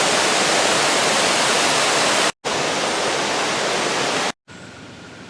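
Waterfall rushing: a steady, loud wash of falling water. It breaks off in two brief silent gaps, about two and a half and four and a half seconds in. After the second gap only a much quieter hiss remains.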